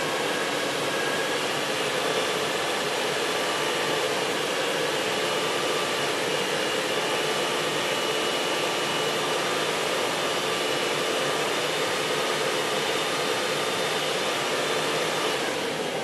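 Nissan Quest's 3.5-litre VQ35 V6 held at a steady raised speed of about 2000 rpm to warm the engine while the cooling system is bled of air, heard from inside the cabin together with the heater blower fan. The sound eases slightly near the end.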